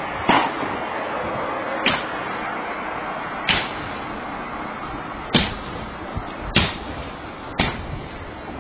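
Blows smashing into the body of an SUV: six sharp impacts, one to two seconds apart, over steady background noise.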